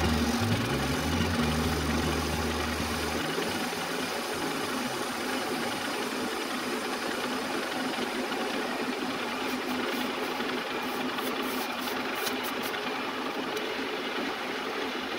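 Metal lathe running, spinning a cube in a four-jaw chuck as the tool cuts its face: a steady machine noise, with a run of sharp high ticks between about nine and thirteen seconds in.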